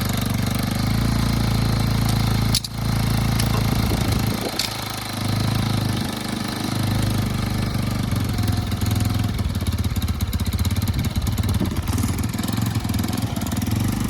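A cheap Chinese quad's GY6 four-stroke single-cylinder engine running steadily just after starting, with its carburetor freshly cleaned to cure it dying under throttle. The sound breaks off for a moment about two and a half seconds in. The engine note dips and shifts twice, around four and a half and six seconds in.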